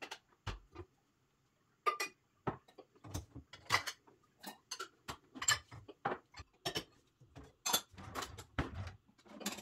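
Pots and utensils being handled on a kitchen counter: irregular light clinks and knocks, roughly two a second.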